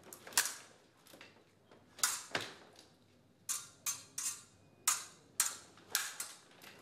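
Sabre blades clashing in quick exchanges: about ten sharp metallic strikes, each with a brief high ring, coming irregularly, some in close pairs.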